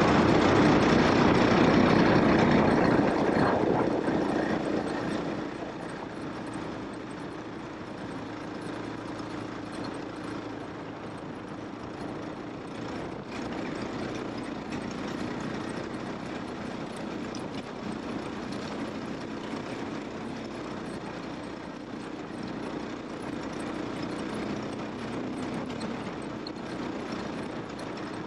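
KTM enduro motorcycle engine running, loud with a rushing noise for the first four seconds or so, then dropping to a quieter, steady note.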